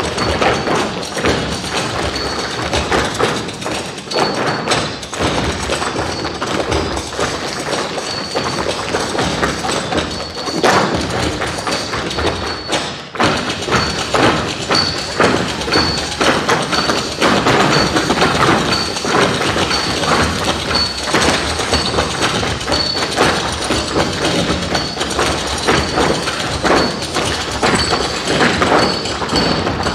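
Dancers' feet striking a stage floor in dense percussive stomps and taps, with a brief break about halfway, over music.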